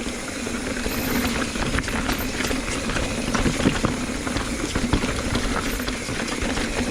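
Mountain bike rolling over a rough, rocky trail: a steady rumble of tyres on dirt with many small clicks and rattles.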